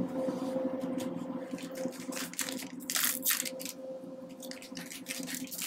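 Crinkling and rustling of foil trading-card booster packs as one is pulled out of the booster box, loudest in a cluster a little past the middle. Faint background music with held tones runs underneath.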